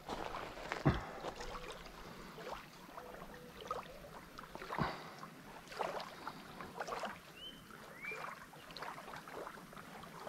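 Faint lapping of small waves on a gravel lakeshore, with scattered clicks and rustles of hands working a fishing line and hook. Two sharper knocks come about a second in and near five seconds, and two short high chirps come near the end.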